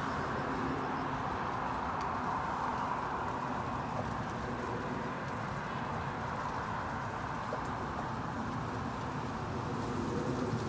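Steady road noise of traffic on a multi-lane road, with the general rush of riding along a roadside path, without distinct events.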